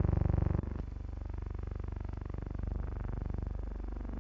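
Aircraft piston engines running with a steady, rapid pulse, heard inside the cabin. About half a second in the sound drops to a quieter, wavering drone.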